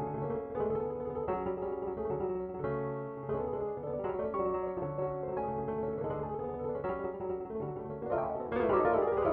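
Piano played from MIDI: a repeating melody over low bass notes and chords, changing about every two-thirds of a second. Near the end the notes crowd together and grow louder in a build-up.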